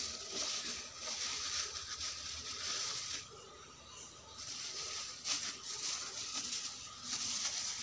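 Quiet rustling and handling noises as hands move among plastic bags of ingredients and pick up small limes, with a few faint ticks and a quieter moment about three seconds in.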